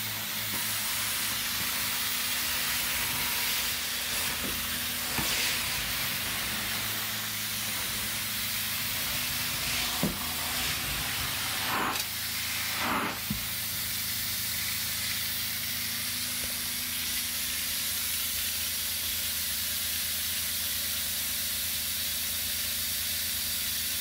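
Hot-water carpet extraction wand working across carpet: a steady rushing hiss of vacuum suction and spray, with a steady low machine hum underneath. A few short knocks and swishes come in the middle, as the wand is moved and repositioned.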